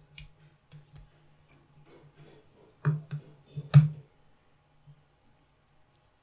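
Handling noise of a phone and its USB cable being connected: a few light clicks, then louder short knocks about three and four seconds in, over a faint steady low hum.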